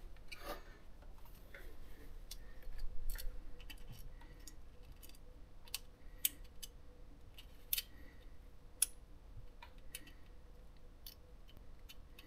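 Scattered small metallic clicks and scrapes of a feeler gauge blade being worked at the valve of a GY6 scooter engine, irregular and fairly faint. The blade will not go in, which suggests the exhaust valve clearance is too tight.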